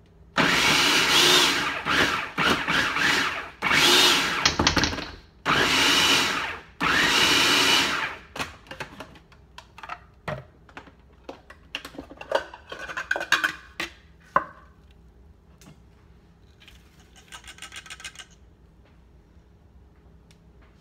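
Food processor with an S blade pulsing raw kale leaves: about five short bursts of the motor, each a second or so long, in the first eight seconds. After that come lighter clicks and rustles.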